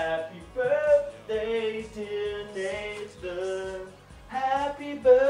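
A man singing a pop song in long held notes that slide in pitch, over a steady low beat.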